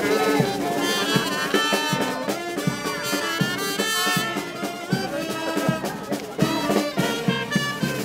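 Live frevo played by a brass band, with trumpet and trombone lines over a steady drum beat.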